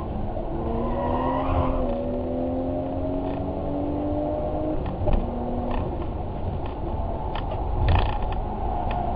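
A vehicle motor running, its hum slowly rising in pitch for a few seconds and then dropping back, with scattered clicks and creaks from the mechanism.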